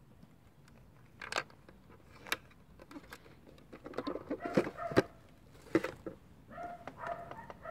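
Sharp clicks and knocks of the hard plastic housing of a BMW NBT navigation display being handled, the loudest about five seconds in. Short high-pitched whining calls come about four seconds in and again repeatedly near the end.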